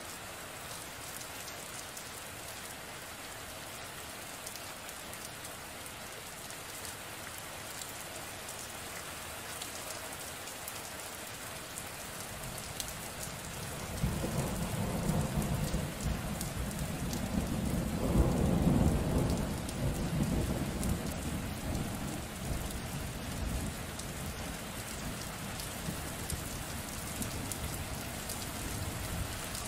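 Steady rain, with a roll of thunder that starts abruptly about halfway through, peaks a few seconds later and rumbles away slowly.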